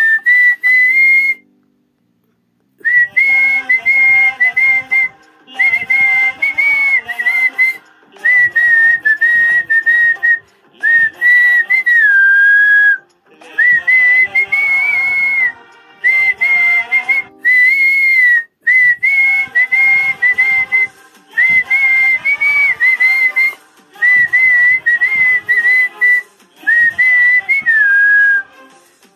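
A man whistling the melody of a Kannada film song by mouth, in short phrases with brief pauses between them and a longer pause about two seconds in.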